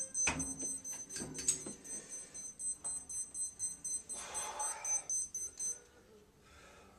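Rapid, even high-pitched electronic beeping, several beeps a second, stops about six seconds in. In the first two seconds there are a few knocks from the gym cable machine's handles and weight stack as the handles are brought down.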